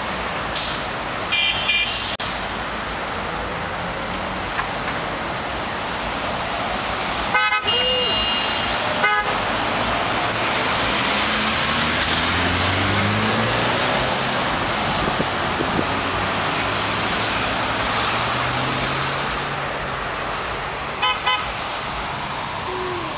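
Steady road traffic passing at a busy intersection, with a few short car horn toots scattered through. About halfway through, a heavy vehicle's engine rises in pitch as it pulls away, then holds steady.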